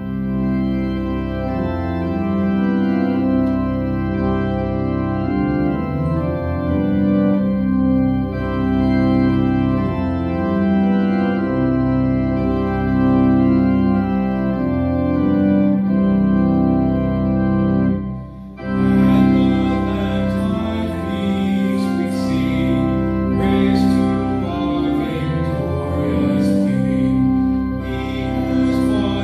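Church organ playing slow, sustained chords as the opening hymn of Mass. It breaks off briefly about two-thirds of the way through, then resumes with brighter upper notes.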